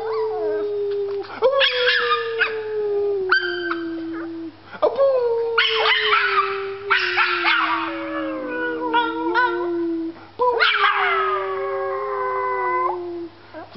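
Small dog howling in long drawn-out howls, each held for a few seconds and sliding slowly down in pitch; a fresh howl starts about a second and a half in, another about five seconds in, and a last one near the end.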